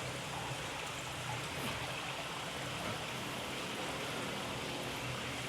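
Steady trickling and splashing of running water, from water flowing in the rainforest aquarium setup.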